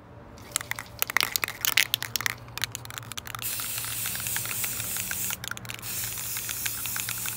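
Rust-Oleum Matte Clear Enamel aerosol can: a few seconds of sharp rattling clicks, then a steady high hiss of clear sealer being sprayed, broken twice for a moment a little past halfway.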